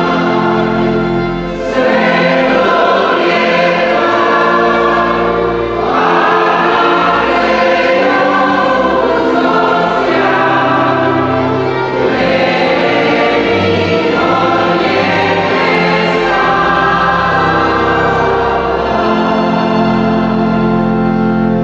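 Mixed choir singing a hymn in slow phrases of sustained chords, closing on a long held chord that dies away at the end.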